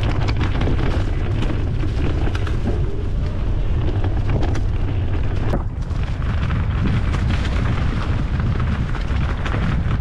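Mountain bike riding over a stony trail covered in dry leaves: the tyres crunch over leaves and rocks and the bike rattles, over a steady low rumble of wind and vibration on the action camera.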